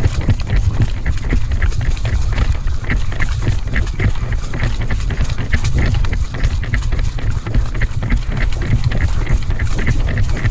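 Footsteps of a person running, in an even rhythm of about two to three steps a second, over a steady low rumble.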